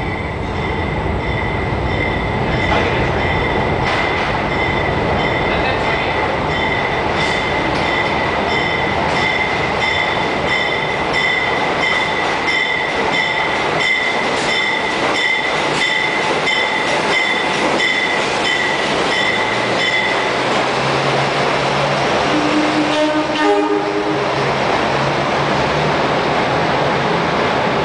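NYC subway work train of open wooden-sided cars running past close by: steady loud rumble of wheels on rail with rail-joint clacks and a steady high whine for most of its passage. Near the end a lower hum takes over, with a short run of stepped tones about 23 seconds in.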